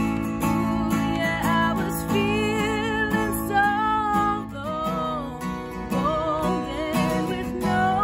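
A woman sings a pop ballad melody in long, held notes over her own strummed steel-string Takamine acoustic guitar.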